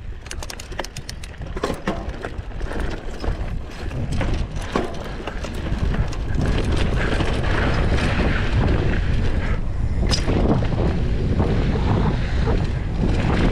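Mountain bike descending a rough dirt and gravel trail: tyre noise with frequent sharp clicks and rattles from the bike over the rocky ground. From about halfway through, wind on the microphone adds a louder, steadier rumble as speed builds.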